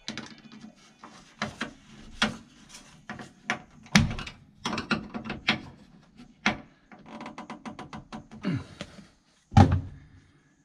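Screwdriver and small metal parts clicking, tapping and scraping against the chrome switch bezel under a 1963 Chevrolet Impala's dash while a new switch is fitted. There is a quick run of ticks partway through, and two louder knocks, one about four seconds in and one near the end.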